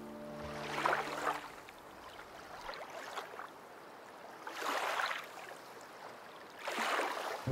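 Soft swishing swells, like water washing, rising and falling about every two seconds. The background music's held chords fade out in the first second.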